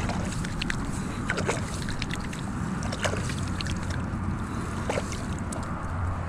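Light sloshing and splashing of pond water at the bank, with scattered short clicks and rustles over a steady low rumble.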